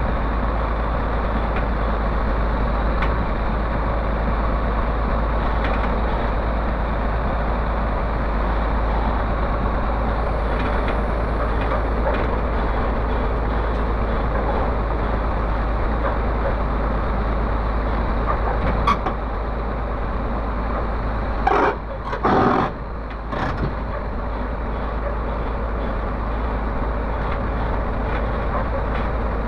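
Komatsu PC300 excavator's diesel engine running steadily while its upper structure swings round on the trailer. About two-thirds of the way through there is a sharp click followed by a few short, louder bursts of noise.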